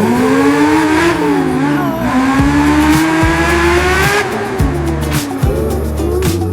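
Music: the closing bars of a song, a single melody line sliding up and holding over sustained bass notes, with light drum hits coming in about two seconds in.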